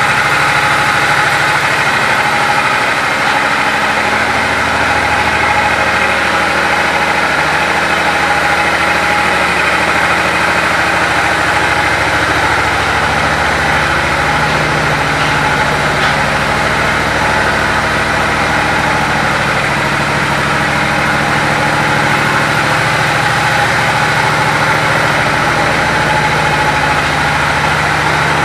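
2004 Suzuki Intruder 1500 LC's liquid-cooled V-twin engine idling steadily.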